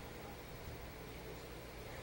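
Steady faint hiss of room tone, with no snore or other distinct sound standing out.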